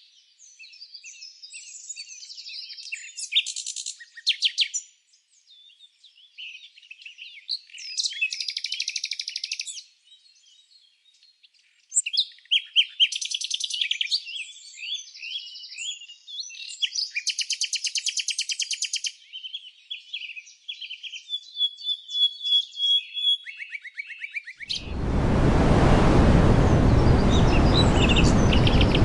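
Songbirds chirping and trilling, a mix of short whistled calls and fast rattling series of notes, with short gaps between phrases. About 25 seconds in the sound cuts abruptly to a loud, steady rushing noise with faint chirps over it.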